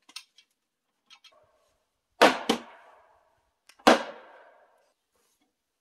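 Hammer blows on a timber beam joint, seating the beam onto a post: three sharp knocks, two in quick succession about two seconds in and a third about a second and a half later, each ringing briefly in the wood, with a few light knocks before them.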